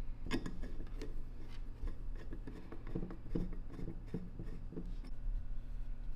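Small screws being turned with a hex key into a machined aluminium flange: light metallic clicks, taps and scraping, busiest about three to five seconds in.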